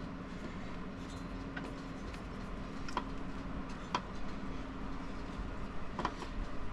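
A few sharp, isolated clicks and knocks of tools and parts being handled, over a steady low hum.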